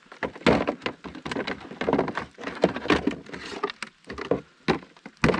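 A rapid, irregular run of knocks and clatter, with a louder knock near the end.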